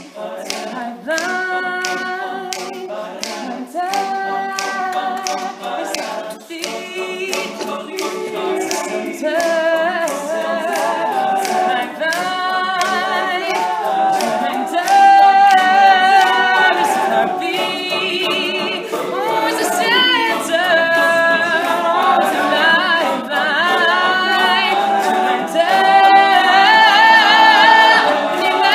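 An all-male a cappella group singing sustained harmony chords without words, over a steady clicking beat, swelling louder toward the end.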